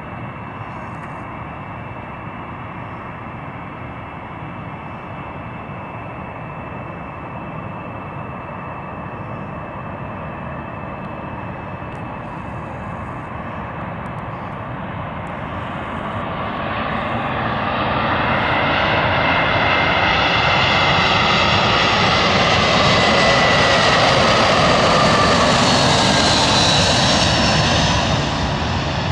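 Airbus A320's twin IAE V2500 jet engines on landing. A steady distant hum grows much louder over the second half as the airliner passes close by, with a whine that slides down in pitch, then drops off near the end.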